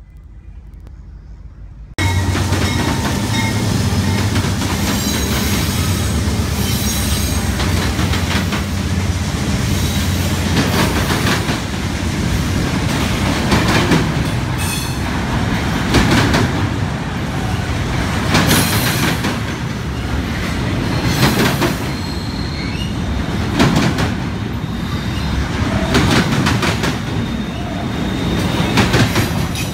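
Double-stack container train of articulated well cars rolling past, starting abruptly about two seconds in: a steady heavy rumble of wheels on rail, with clusters of clacks every two to three seconds as the wheel sets cross rail joints, and a faint wheel squeal at times.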